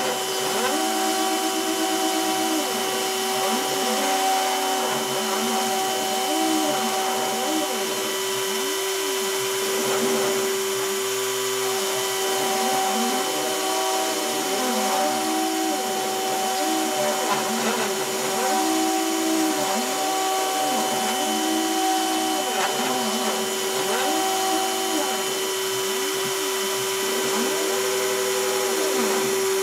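A rotary-tool spindle on a hobby CNC router runs steadily with a high whine as its bit carves into cardboard. Over it, the machine's stepper motors give tones that glide up and down again and again as the axes speed up and slow down between moves.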